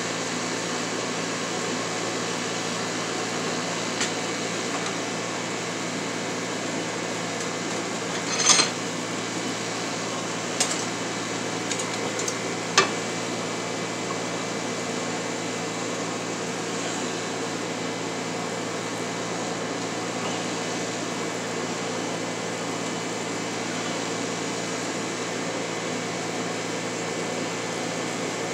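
A blacksmith's forge running with a steady, fan-like rush and a low hum. A few sharp metallic clinks sound about a third of the way in.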